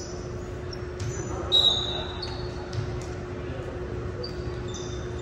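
Sneakers squeaking in short, high chirps on a hardwood gym floor, with a ball thudding on the floor, loudest about a second and a half in. Voices murmur in the gym over a steady faint hum.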